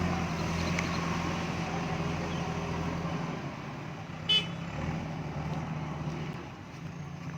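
JCB backhoe loader's diesel engine running steadily, easing off a little near the end. One short, sharp, high-pitched sound comes about four seconds in.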